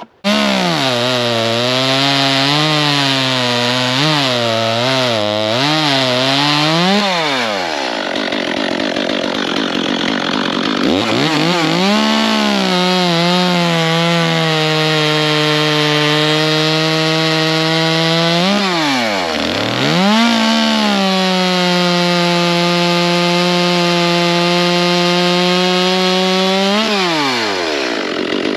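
Echo top-handle two-stroke gas chainsaw at full throttle, cutting through a log. Its engine pitch wavers for the first several seconds, drops off twice when the throttle is eased, and holds steady through two long stretches of cutting before winding down near the end.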